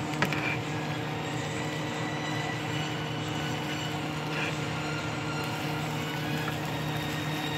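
Metal tongs tossing and stirring stir-fried yakisoba noodles in a frying pan, with one sharp clink of metal on the pan about a quarter-second in. Under it runs a steady hum with a low hiss.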